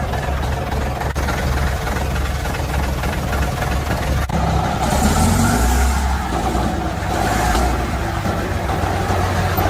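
Heavy truck engine running steadily with a low rumble, with a brief hiss about five seconds in.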